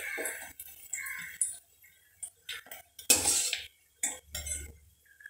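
Steel slotted spoon scraping and clinking against a steel frying pan and plate in several short, irregular bursts as fried egg pieces are lifted out of the oil.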